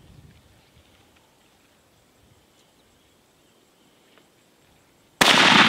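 Faint bush ambience with soft bird and insect calls, then a single loud, sudden hunting-rifle shot about five seconds in, its report trailing off in a long echo.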